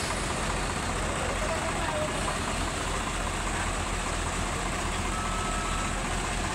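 Heavy diesel engine running steadily, a low even hum with no change in pitch.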